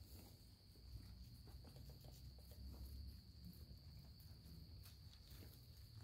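Faint, steady chorus of crickets, one even high-pitched trill, with a few faint scattered ticks.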